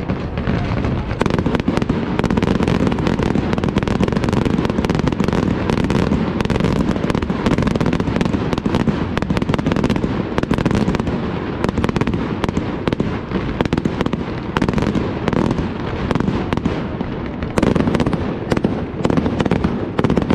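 Aerial fireworks display by Itria Fireworks: shells launch and burst in quick succession in a continuous, dense barrage of bangs and crackle. It swells slightly about a second in and again near the end.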